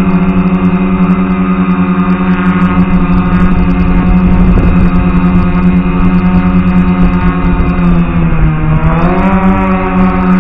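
DJI F450 quadcopter's electric motors and propellers whining at a steady pitch while hovering. About eight seconds in, the pitch sags and then climbs back as the throttle is eased off and opened again.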